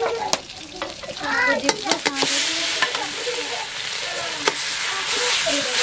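Food frying in hot oil in a steel wok. The sizzle rises sharply about two seconds in, and a metal spatula scrapes and knocks against the pan now and then.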